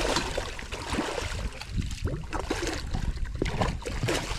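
A freshly netted muskie thrashing in a landing net at the side of the boat, splashing water in irregular bursts.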